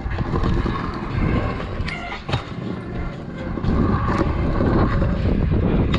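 Wind rumbling on an action camera's microphone: a dense, low, steady rush that grows a little louder in the second half.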